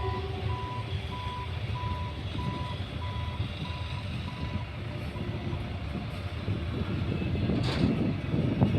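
Electric commuter train at a station, its low rumble under a repeated single-tone electronic beep, about two a second, that stops about five seconds in; a short hiss comes near the end.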